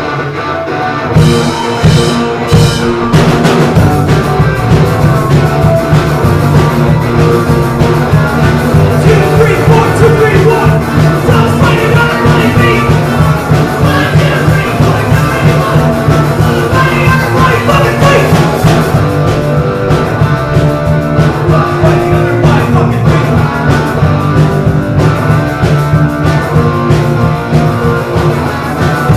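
Punk rock band playing live at full volume: distorted electric guitars, bass and a driving drum kit, in a dense, unbroken wall of sound.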